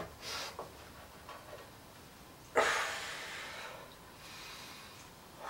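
A man breathing out hard and gasping after a swallow of moonshine: a short hiss near the start, a sudden louder exhale about two and a half seconds in that fades over a second, and another near the end.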